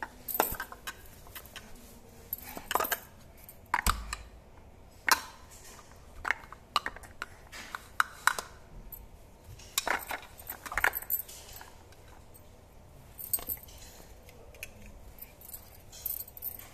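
Irregular clacks and clicks of hard plastic stacking cups set one on top of another, mixed with the jingle of bangles on the stacking hand. A dull thump about four seconds in.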